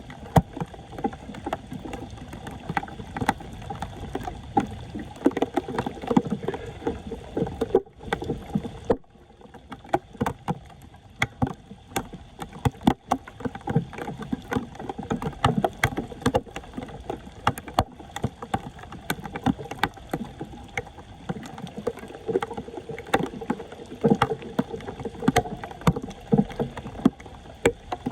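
Shallow floodwater splashing and sloshing, with many irregular small knocks and scrapes, as debris is worked loose from a clogged street drain; it breaks off briefly about eight seconds in.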